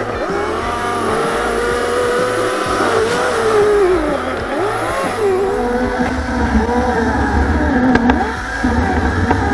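Chainsaw cutting into the trunk of a small maple, its motor whine dipping and rising again over and over as the chain bogs down in the wood. A deeper low rumble comes in for the last few seconds, with a few sharp clicks near the end.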